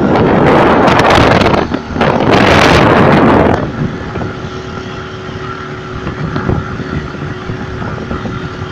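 Wind rushing loudly over the microphone for about three and a half seconds, then a quieter steady motorboat engine running under wind and water noise.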